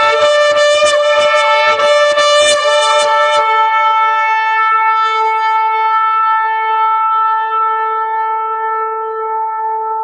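Shofar (ram's horn) being blown. For about the first three seconds it gives a rapid run of short broken blasts over a held note, then settles into one long steady blast that is held through to the end.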